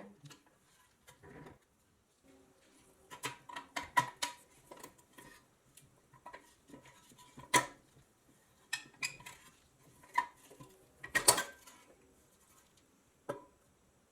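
Metal parts clinking and tapping against each other on a work surface in irregular clusters of light clicks, with a sharper ringing clink about halfway through and another loud one later.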